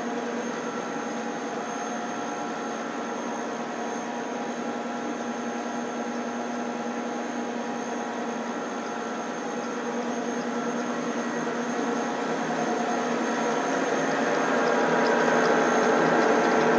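A machine running with a steady motorised hum and whine made of several fixed tones, growing louder over the last several seconds.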